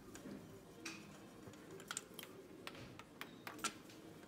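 Faint, scattered small clicks and taps, about half a dozen, from gloved hands handling parts on top of a bare engine between compression-test readings.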